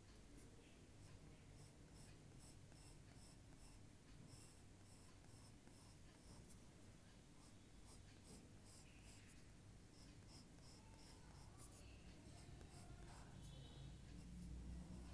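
Faint scratching of a drawing tool on paper: runs of quick short strokes with brief pauses between them.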